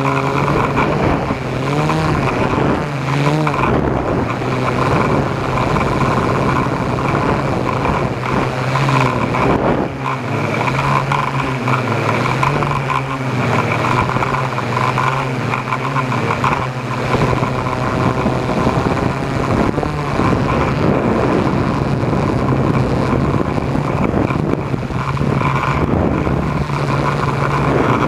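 A motor vehicle's engine running steadily at low speed, its pitch shifting slightly up and down.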